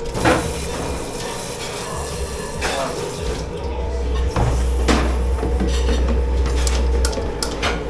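Dishes and cutlery clattering, with a number of sharp knocks that come closer together near the end, over water running in a sink.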